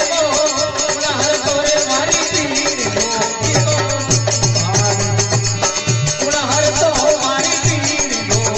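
Rajasthani folk bhajan music: an instrumental passage with a wavering melody line over steady, quick percussion and a pulsing low beat.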